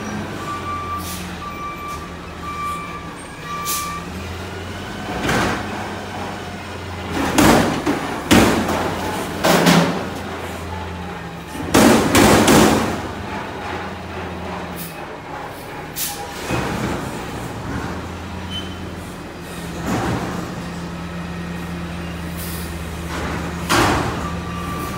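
Front-load garbage truck (CNG Peterbilt 520 with a McNeilus Contender body) working a steel dumpster: its backup alarm beeps for the first few seconds while the engine drones under load. Then come a series of loud metal bangs and clangs as the hydraulic forks raise the dumpster over the cab, shake it empty against the stops and bring it back down, with a last clang near the end as it is set down.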